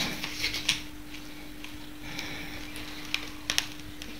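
Scattered light clicks and taps of a spatula and cake board as a cake is lifted off a cake turntable onto the board, over a steady faint hum.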